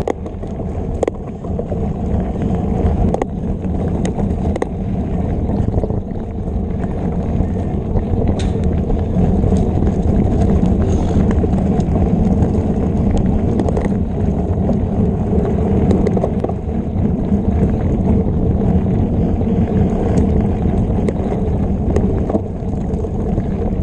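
Mountain bike ridden fast over a dirt trail: a steady low rumble of tyres and air on the camera's microphone, with scattered clicks and knocks from the bike rattling over bumps.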